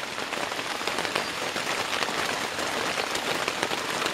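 Heavy rain falling steadily on a river and the grass around it, heard from under a tarp tent: a dense hiss thick with the ticks of single drops.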